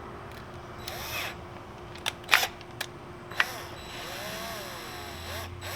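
Small anodized metal parts of a bicycle dropper-lever clamp being handled and closed by hand: a short scrape about a second in, then a few sharp metallic clicks and taps, over a steady low hum.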